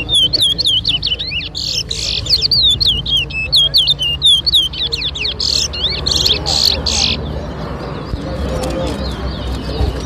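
Towa-towa (chestnut-bellied seed finch) singing a fast string of sweeping whistled chirps, louder in the middle and stopping about seven seconds in.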